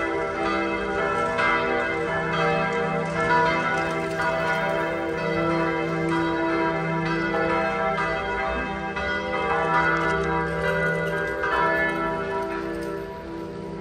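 Large church bells pealing, several bells sounding together with long overlapping tones. The ringing eases a little near the end.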